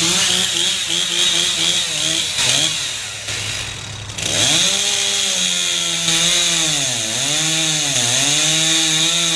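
Two-stroke chainsaw running at high revs. It eases off briefly near the middle, then runs hard again, its pitch dipping about once a second as it bogs down cutting into wood.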